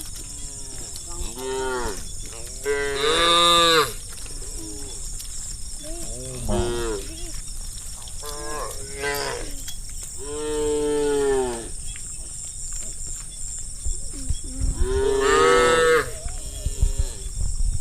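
Herd of cattle mooing: a series of moos from several cows, some overlapping, with the longest and loudest calls about three seconds in, around ten seconds in, and near fifteen seconds in.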